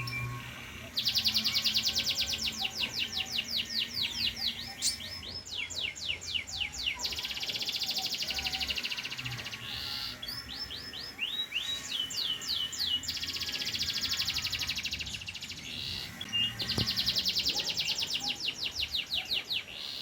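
Domestic panda canary singing in long runs of very fast trills and rolls: each burst of rapidly repeated high notes lasts a few seconds, with short pauses and quicker slurred notes between them.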